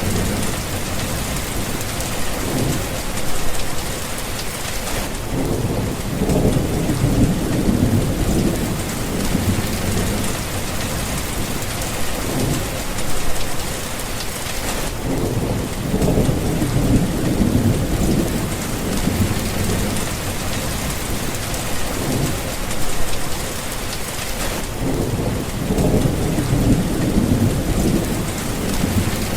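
Thunderstorm: steady heavy rain hiss with low rolling thunder rumbles swelling and fading every few seconds.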